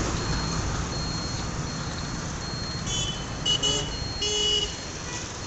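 Road traffic heard from a moving two-wheeler: engine running, a few short horn honks between about three and five seconds in, and a faint high beep repeating roughly every three-quarters of a second.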